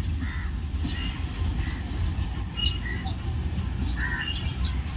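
A passenger train's coaches rolling past on the track with a steady low rumble, while small birds chirp over it, including two quick chirps about halfway through.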